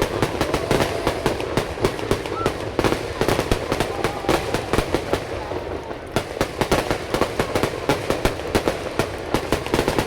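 Fireworks display: a dense, continuous run of bangs and crackles, several a second and irregular, overlapping without a break.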